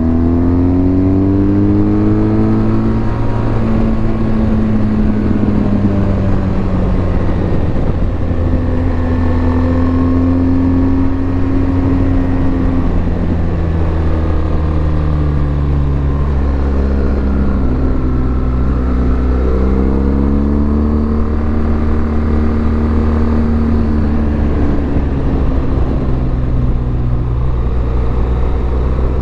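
BMW R1200GS boxer-twin motorcycle engine under way. Its pitch rises and falls several times as the rider accelerates and eases off, over a steady low rumble.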